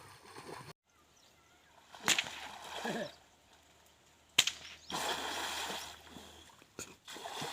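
Water splashing from people swimming, with sudden sharp splashes about two seconds in and again past four seconds, and brief children's voices.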